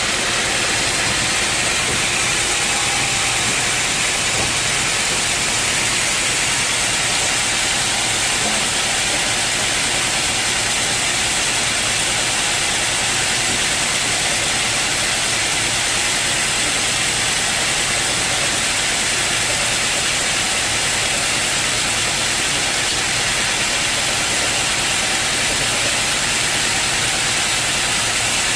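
Sawmill saw running steadily, a loud even noise with most of its weight high up and no breaks or changes, as from a blade working through a teak log.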